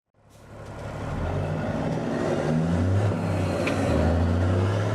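Heavy diesel dump truck engine running, its pitch stepping up and down, fading in over the first second.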